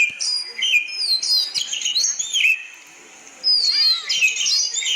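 Oriental magpie-robin (doyel) singing: a quick run of varied, clear whistled notes and slurs, broken by a pause of about a second near the middle.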